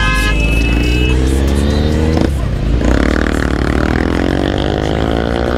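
Motorcycle engine revving up under acceleration. Its pitch climbs, drops briefly about two seconds in at a gear change, then climbs again, loud throughout. A vehicle horn sounds at the very start.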